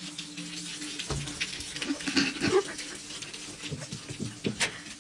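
A husky-type dog making short vocal sounds, loudest about two and a half seconds in, with scattered small clicks and knocks around it.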